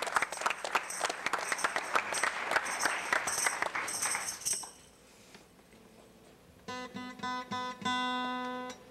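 Studio audience applause, dying away about four and a half seconds in. After a short pause, acoustic guitar and hand-squeezed manualism notes start a tune: a few short notes, then one held note near the end.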